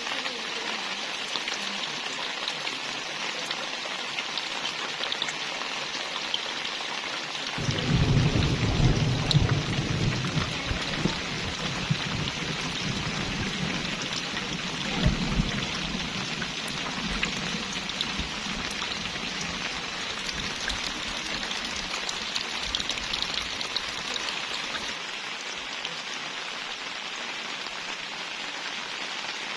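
Steady rain falling. About a quarter of the way in, a low rumble of thunder sets in suddenly, loudest for the first couple of seconds, swells once more near the middle and then dies away.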